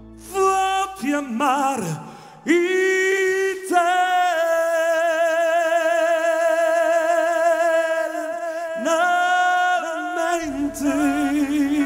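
Live male vocal, unaccompanied, sung into a handheld microphone: a few short phrases, then a long note held for about four seconds with a wide vibrato. The band comes back in near the end.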